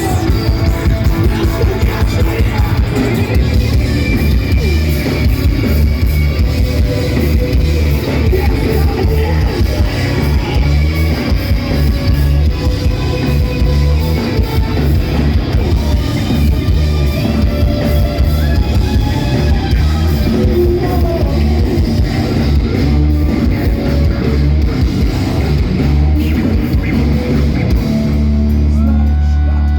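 Heavy rock band playing live, with distorted guitars, bass and a drum kit. Near the end the drumming stops and a low chord is held.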